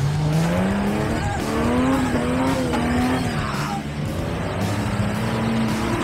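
Off-road Jeep's engine revving under load while rock crawling, rising in pitch, easing off about four seconds in, then rising again.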